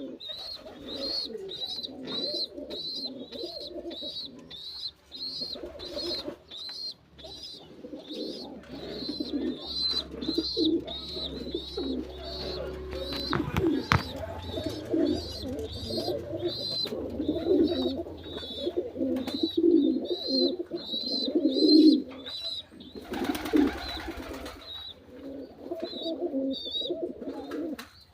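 Domestic pigeons cooing over and over, with a thin high chirp repeating about twice a second through most of it. A brief rushing noise breaks in about 23 seconds in.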